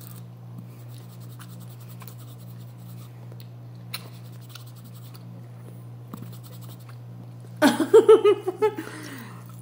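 Faint wet chewing and lip-smacking clicks of a person eating with her fingers, over a steady low hum. About eight seconds in, a short burst of pulsing laughter.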